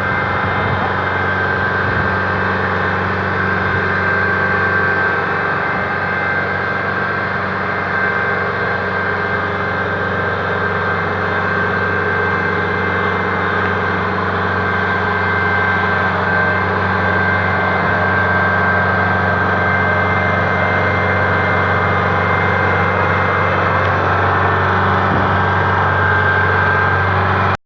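Rice combine harvester's diesel engine running steadily, with a thin high whine over the engine note; it grows slightly louder in the second half.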